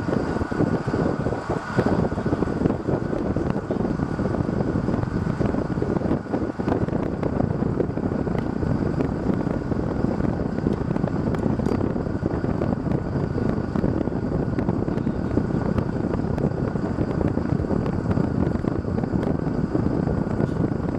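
Steady rushing wind noise on the microphone, with a faint high whine running through it.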